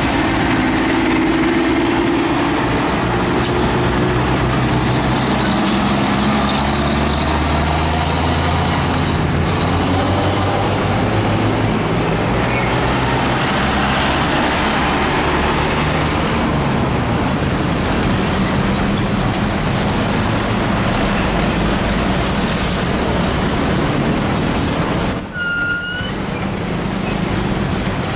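Heavy diesel trucks running and passing at close range in road traffic: a Volvo FH12 tractor unit's engine hum first, then other trucks going by.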